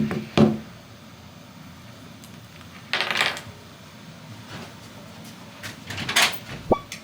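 A few short knocks and clatters of small objects being handled, with a quick falling squeak near the end.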